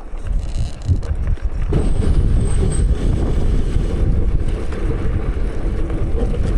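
Loaded touring bicycle rolling over a rough dirt trail, a dense low rumble and rattle with wind buffeting the microphone, growing louder a second or two in.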